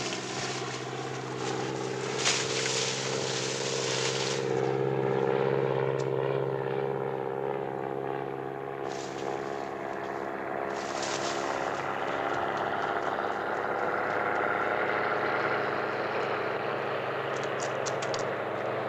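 Propeller engine of a low-flying crop-duster plane, a steady drone that grows louder a few seconds in and then eases. A rushing hiss runs over the first few seconds.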